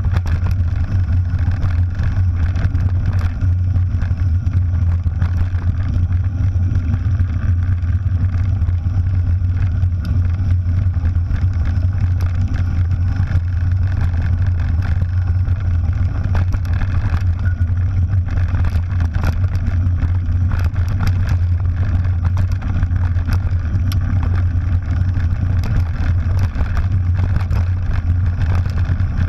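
Wind buffeting the microphone of a camera on a mountain bike rolling fast down a gravel track, a steady low rumble, with the tyres crunching over loose stones and frequent small rattles and clicks from the bike on the rough surface.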